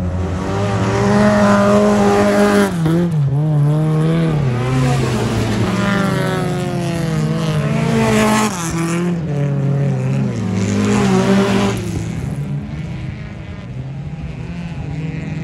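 Folkrace cars racing on a gravel track, their engines revving hard. The pitch climbs and drops again and again through gear changes. The sound eases off after about twelve seconds as the cars move away.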